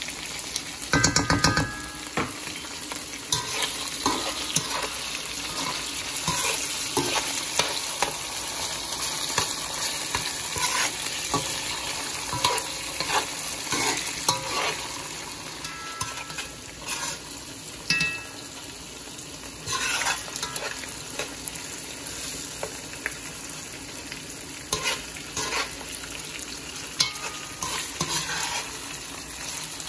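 Sliced sausage and tomato paste frying in oil in a metal skillet, sizzling steadily, while a metal spoon stirs and scrapes against the pan with frequent clicks and taps. A cluster of loud knocks about a second in.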